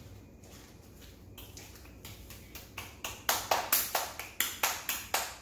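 A child clapping his hands: a quick run of about ten sharp claps, about four or five a second, starting about three seconds in.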